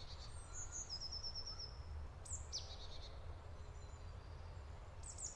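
Songbirds calling: a few high chirps, a quick trill about a second in and a falling call about two and a half seconds in, over a low steady rumble.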